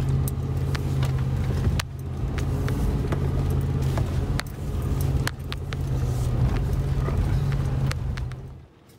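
SUV engine running at a steady low pitch as it crawls up a steep, rocky dirt trail, heard from inside the cabin, with frequent sharp knocks and rattles as the vehicle jolts over rocks. The sound drops away sharply near the end.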